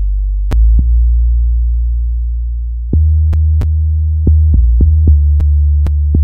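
FM synth sub-bass line from FL Studio's DX10 playing solo. It is a run of sustained low notes that step up and down in pitch, with a sharp click at the start of many notes.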